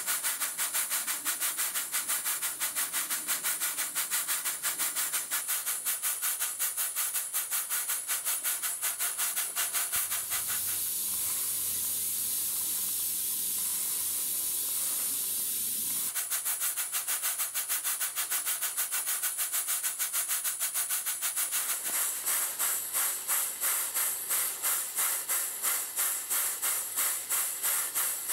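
Small model steam engine running on live steam, its exhaust coming in quick, even beats with a constant hiss. About ten seconds in, the beats give way to a steady hiss for several seconds, then they return, slower and stronger near the end.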